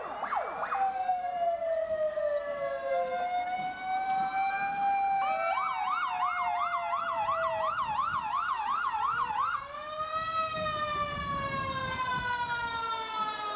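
Several emergency-vehicle sirens sounding at once, their slow wails overlapping. From about five seconds in, one switches to a fast yelp for about four seconds, then goes back to a wail.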